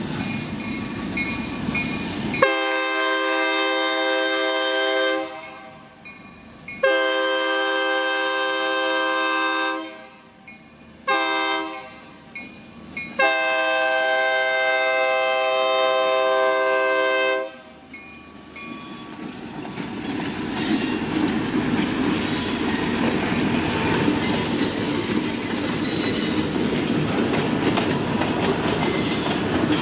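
EMD SD40-2 diesel locomotive's air horn sounding the grade-crossing signal: two long blasts, a short one, and a long one, very loud. The locomotive and a train of loaded log cars then roll past with steady wheel clatter on the rails.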